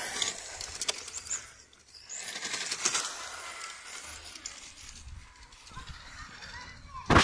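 Electric RC car driving on asphalt: the whine of its motor and the hiss of its tyres swell and fade as it passes, once at the start and again about three seconds in. A sharp knock near the end is the loudest sound.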